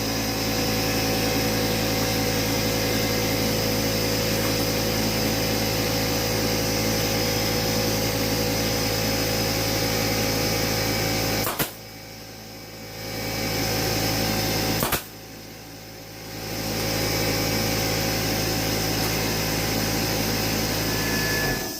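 Air compressor running loud and steady with a low motor hum. Two sharp cracks come about three and a half seconds apart in the second half: a pneumatic staple gun firing.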